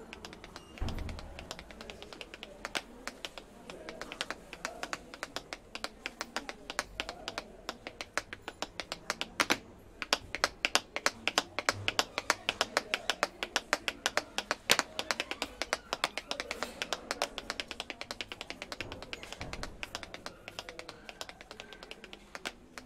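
Rapid, sharp percussive taps in an irregular rhythm. They are sparse at first and become fast and dense from about ten seconds in, with a low thump about a second in.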